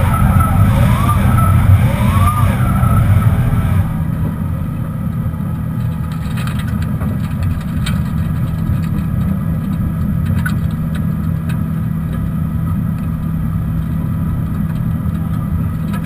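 Rear tyres of an electric BMW M3 squealing with a wavering pitch in a burnout, over the steady low hum of the car's twin 11-inch electric motors, for about the first four seconds. Then the squeal stops suddenly and a quieter steady running noise of the car driving remains.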